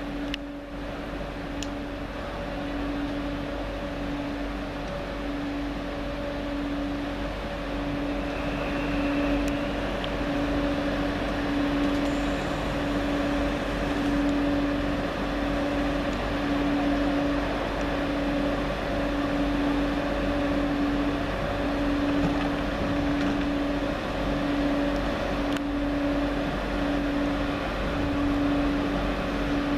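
Steady electrical hum of a TGV trainset at the station platform, pulsing about once a second over a background rumble.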